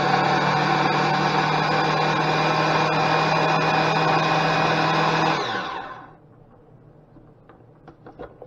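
Oster 12-speed blender with a food-processor bowl running steadily, grinding bread into breadcrumbs. About five seconds in it is switched off and the motor winds down, followed by a few faint clicks.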